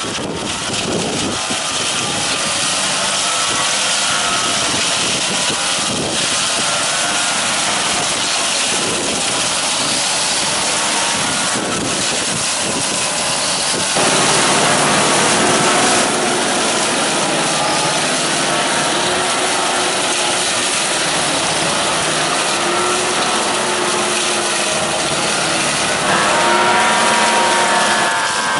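GreenTec RC 162 rotary hedge cutter running on a boom arm, its belt-driven blade rotors whirring and chopping through hedge branches over the carrier vehicle's engine. There is a wavering whine, and the sound steps louder about 14 and 26 seconds in.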